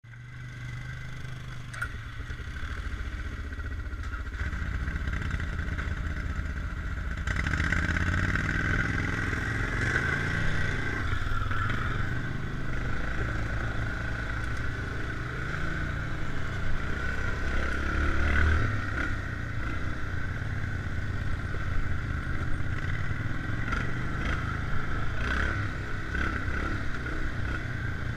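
ATV engine heard from on board, running quietly at first, then louder from about seven seconds in and revving up and down as the quad rides over a rough trail, with occasional knocks and rattles.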